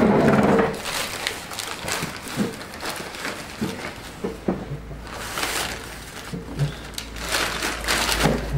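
Wrapping paper being torn and crumpled as presents are unwrapped, in irregular rips and rustles with a louder burst at the start.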